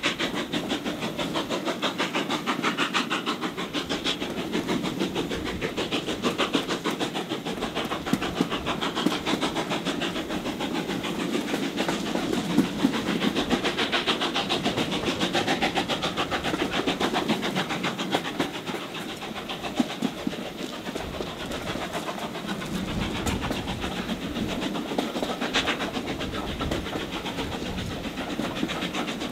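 Steam locomotive hauling a train of coaches, its exhaust beating steadily together with the rattle of the coach wheels on the rails, heard from an open window of a carriage behind it.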